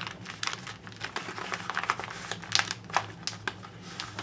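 Magazine-page paper rustling and crinkling in quick, irregular crackles as it is refolded and pressed flat by hand.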